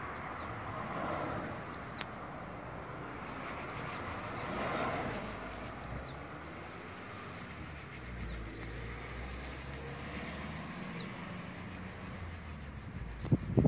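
Steady outdoor background of distant traffic, with a few faint bird chirps. Near the end, rubbing bumps of the phone being handled.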